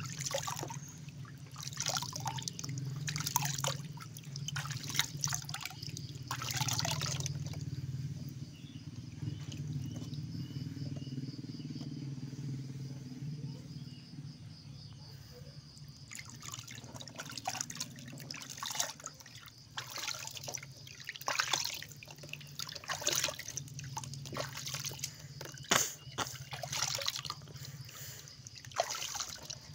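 Water splashing and dribbling in irregular bursts as a kitten is washed by hand in warm water, with a quieter stretch in the middle. A steady low hum runs underneath.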